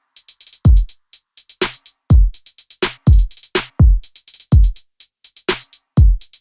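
Background electronic music: a drum-machine beat of deep kick drums with a quickly falling pitch, roughly two a second, under fast runs of crisp hi-hat ticks.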